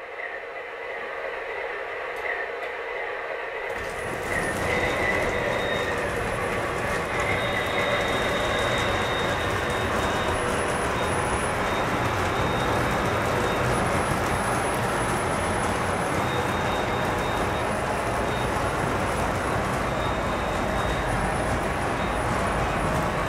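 O scale model freight train, an MTH RS-3 diesel locomotive hauling a long string of cars on MTH ScaleTrax track, running past: a steady rolling rumble of wheels and cars on the track with faint thin squeals. It builds over the first four seconds, then holds steady.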